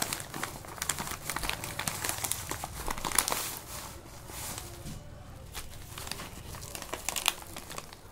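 A plastic courier mailer being torn open and crinkled by hand, with the plastic packaging inside rustling as it is pulled out. The crackling is densest in the first half, thins out for a few seconds, then picks up again near the end.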